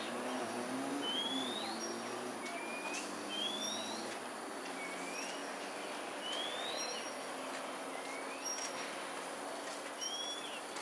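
A bird repeats a short whistled phrase about every one and a half to two seconds: a rising whistle, a brief higher note and a lower rising note, over a steady background hiss.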